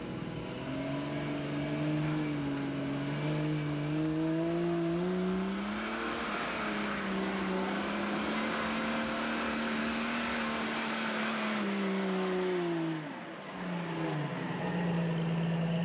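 Off-road 4x4's engine revving under load: its pitch climbs over the first few seconds, holds high, drops about two-thirds of the way through, then climbs again. A hissing rush rides over the engine through the middle.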